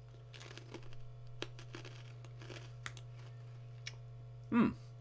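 A mouth chewing crunchy pretzel pieces, with faint irregular crunches and crackles, followed near the end by a short murmured "mm" of approval.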